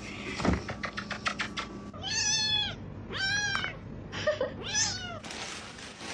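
Cat meowing four times, each meow rising then falling in pitch, the last two shorter. Before the meows comes a quick run of sharp clicks lasting about a second.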